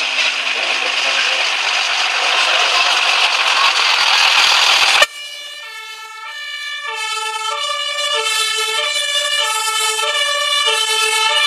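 A loud, even rushing noise for about five seconds, cut off abruptly. Then a German two-tone fire-engine siren (Martinshorn) alternating between a low and a high note, growing louder.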